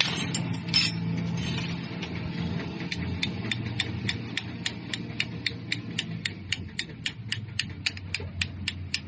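An engine runs steadily with a low hum while a sharp mechanical clicking repeats evenly, about three to four clicks a second, from about three seconds in; a few irregular clicks come near the start.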